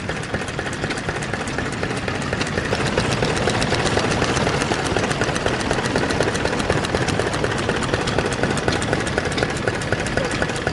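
Early Yanmar K4 single-cylinder diesel stationary engine with spoked flywheels running steadily, with a rapid, even firing beat.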